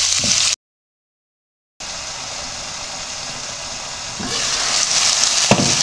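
Chicken cubes and onion sizzling in hot oil in a frying pan, stirred with a wooden spoon. The sound cuts out for about a second, then the frying returns as a quieter steady hiss under a glass lid and grows louder about four seconds in as the lid comes off, with a single knock near the end.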